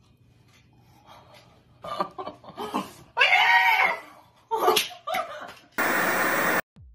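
Two women squealing and laughing in short outbursts, with smacking mouth noises. Near the end, a short burst of television static noise cuts in.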